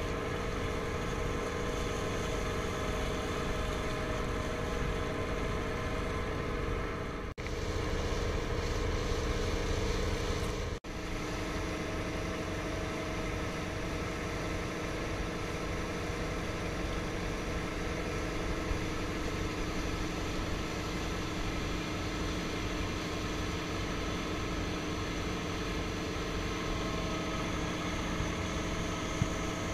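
Motorboat engine running steadily under way. Two short dropouts come about seven and eleven seconds in, and the stretch between them is a little louder.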